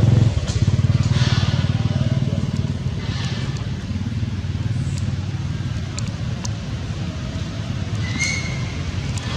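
A small engine running steadily with a low, even throb, with a short faint high squeak about eight seconds in.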